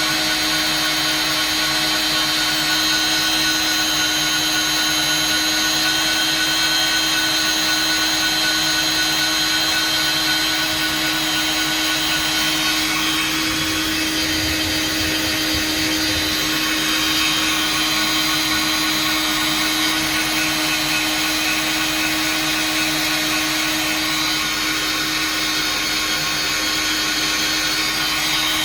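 Electric motor of a welding tool running steadily under constant load, a continuous whine and blowing noise with no break.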